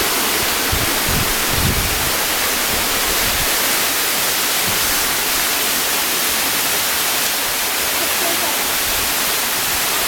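Waterfall and its cascading stream rushing over rocks: a steady, dense hiss of falling water.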